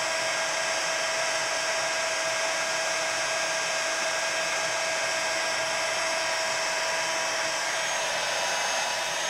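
Embossing heat tool blowing steadily, a fan hiss with a faint steady whine, as it melts thick clear embossing powder from the back of the paper.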